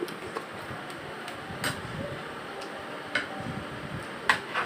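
A few sharp, irregular clicks and taps of tableware on a glass tabletop while someone eats rice with their fingers from a bowl.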